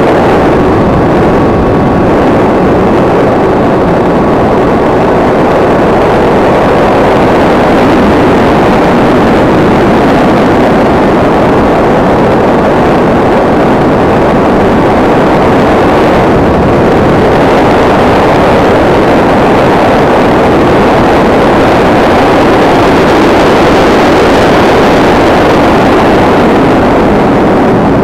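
A SkyCruise 2400 RC model plane in flight, heard from its onboard camera: a loud, steady rush of airflow over the airframe and microphone, with a faint steady tone in the first several seconds.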